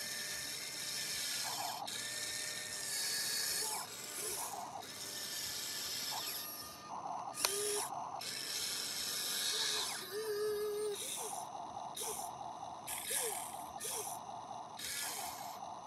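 Electric motors and gearing of a HUINA radio-controlled toy excavator running in short stop-start bursts as the arm swings and the bucket digs into sand.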